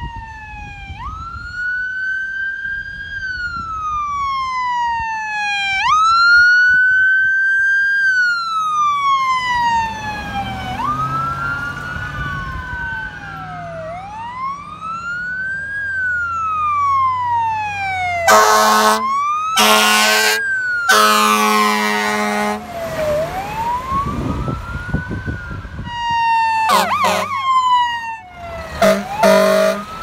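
Fire apparatus electronic sirens wailing, rising and falling in pitch, with a second siren overlapping from about a third of the way in as a brush truck and water tender run hot. An air horn blasts three times about two-thirds through. The sirens then switch to a fast yelp with two more short horn blasts near the end, over a low diesel engine rumble.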